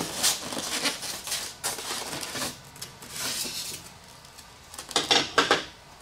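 White polystyrene foam packaging being worked apart by hand: foam pieces rubbing and squeaking against each other, with scuffs and light knocks, loudest about five seconds in.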